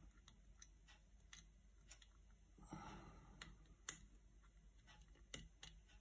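Faint, scattered metallic clicks of a lock pick and tension wrench working the pins inside a pin-tumbler lock cylinder, as the picker probes the pins one by one.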